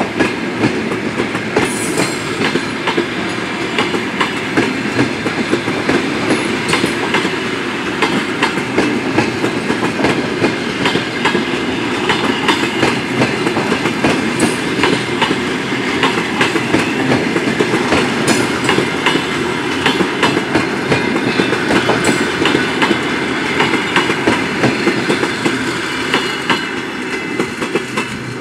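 Passenger coaches of a departing train rolling past, their wheels clicking and clacking over rail joints and points above a steady rumble. The sound eases slightly near the end.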